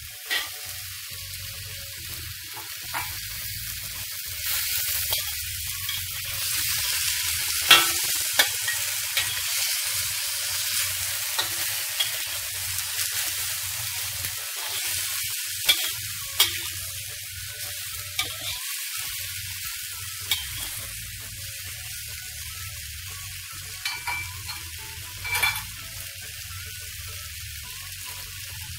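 Chicken strips, celery and mushrooms sizzling in hot oil in a wok, stirred with a metal spatula that scrapes and now and then clicks against the pan. The sizzle grows louder a few seconds in and eases off through the second half.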